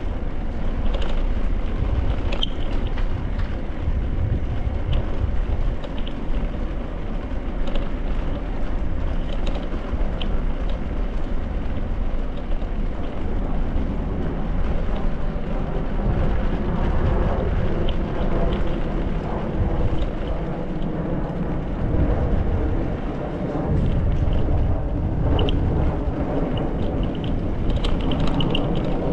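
Bicycle tyres rumbling over brick paving with wind on the microphone, a steady low noise, with a few short high ticks now and then.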